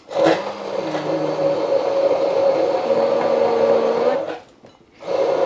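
Electric kitchen blender running, grinding garlic, shallots, candlenuts and chillies with water into a spice paste for lodeh. It runs steadily with a constant motor pitch, then stops about four seconds in.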